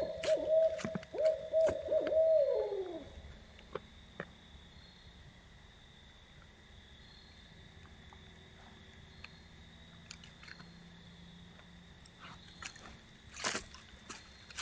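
An owl hooting: a run of hoots that ends about three seconds in with a note sliding downward. After it come only faint scattered clicks and rustles over a steady faint high whine.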